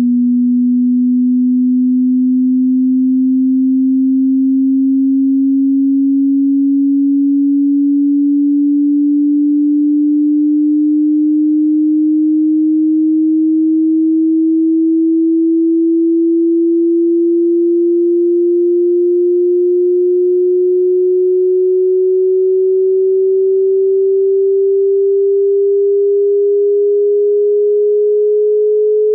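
Hearing-test sine tone sweep: a single pure, low tone rising slowly and steadily in pitch at a constant loud level.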